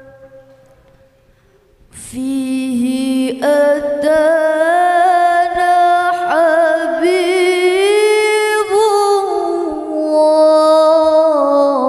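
A young woman singing an Arabic devotional song (sholawat) solo into a microphone over a PA system: a slow, ornamented melody with long held and gliding notes. It starts about two seconds in, after a near-quiet pause.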